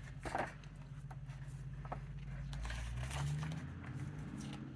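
Faint rustling and light taps of paper being handled, as magazine pages are turned, over a low steady hum.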